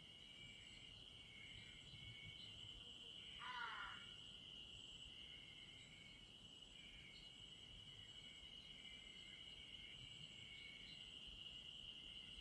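Insects chirring in a steady high trill, with softer intermittent chirps from other insects. About three and a half seconds in, a brief call that falls in pitch.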